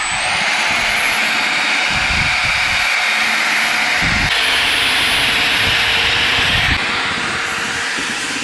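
Angle grinder working on the steel exhaust pipe: a steady, loud grinding hiss over a thin high motor whine. It gets harsher about four seconds in and eases a little near seven seconds.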